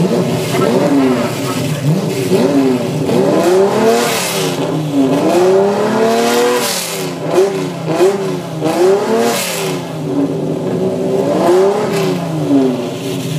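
Lamborghini Countach V12 engines revving together: repeated throttle blips rise and fall in overlapping pitches over a steady idle.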